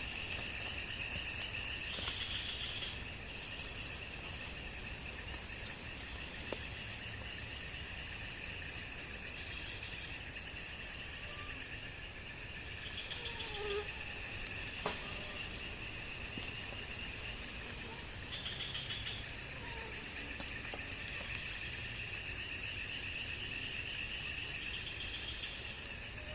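Crickets and other insects in a steady, high-pitched chorus, with short louder buzzing bursts every few seconds and a few faint clicks.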